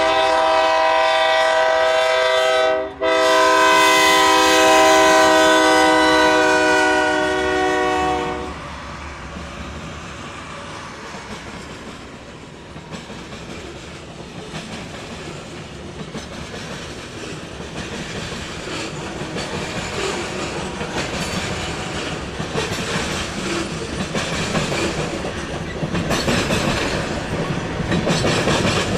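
BNSF train horn sounding a multi-tone chord, a short blast and then a long one of about five seconds, warning for a grade crossing. The horn then stops and the train rolls past with clickety-clack of wheels over rail joints, growing louder toward the end.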